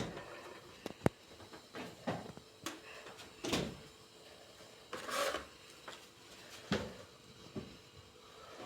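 Household handling noises: scattered knocks and clicks with a few short scraping swishes, like drawers or cupboard doors being opened and shut.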